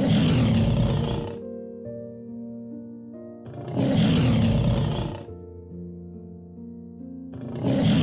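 A big cat roaring three times, each roar about a second and a half long and about four seconds apart, over background music of steady held notes.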